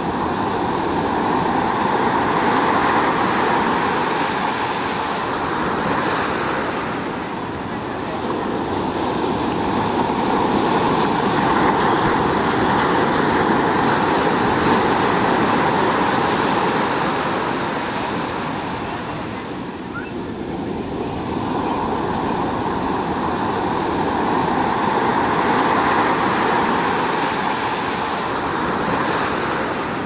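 Pacific surf breaking and washing up the beach: a steady rush of waves that swells and eases in slow surges.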